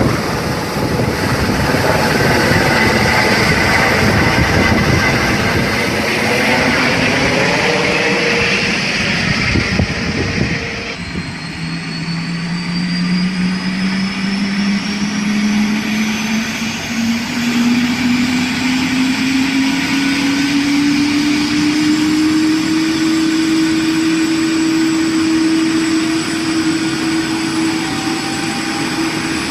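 Helicopter sound effect: dense, pulsing rotor and engine noise. About eleven seconds in it changes abruptly to a loud engine whine that climbs steadily in pitch for about ten seconds, then holds steady.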